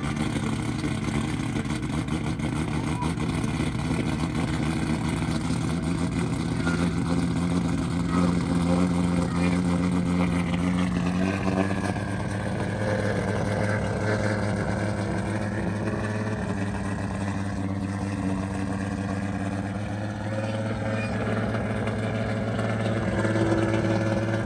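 Toyota 2JZ straight-six engine running steadily on its first start-up after a rebuild; about halfway through the idle speed drops to a lower, steady idle.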